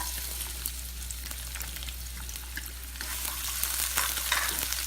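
Chopped garlic sizzling in hot olive oil in a pan, a steady frying hiss with a few light clicks of stirring.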